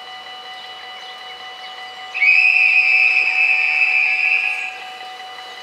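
Level-crossing warning bells ringing steadily. About two seconds in, a loud, high, single-pitched whistle blast joins them and lasts about two and a half seconds before fading out.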